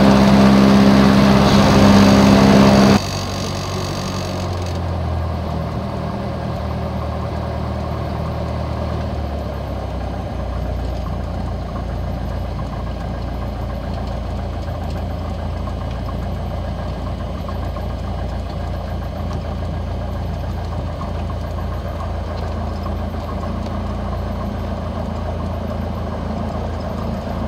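Piper PA-28 Cherokee's piston engine and propeller heard from inside the cabin. It runs loud and steady for about three seconds, then drops abruptly to a quieter, steady drone that continues.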